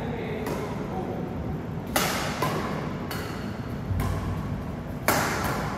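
Badminton rally: rackets striking the shuttlecock about six times at uneven intervals, some hits coming in quick pairs, with a heavy thud of a footfall on the court near the middle.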